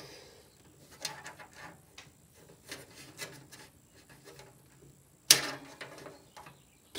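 Handling noises of a SATA cable connector being pushed home and checked inside a PC case: scattered light clicks and rubbing, with one sharp knock about five seconds in.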